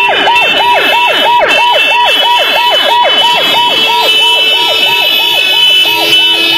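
A vehicle siren yelping fast, about four up-and-down sweeps a second, over steady horn tones. The yelp weakens after about four seconds as a steady lower horn note comes in.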